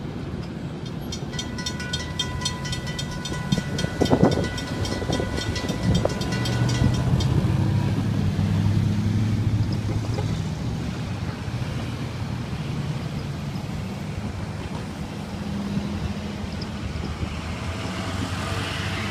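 Railroad grade-crossing warning bell ringing rapidly, stopping about seven seconds in. Road vehicles then drive past, a truck engine running low and a car passing near the end.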